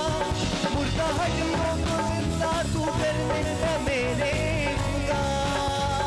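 Live worship band playing an instrumental passage: a steady hand-drum beat under keyboard and acoustic guitar, with a wavering melodic lead line on top.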